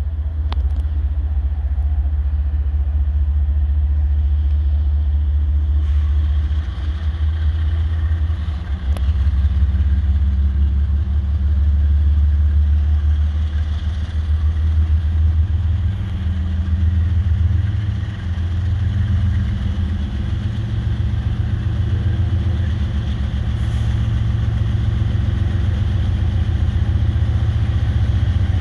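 GE diesel-electric freight locomotives running with a deep, steady engine rumble that swells and eases a little.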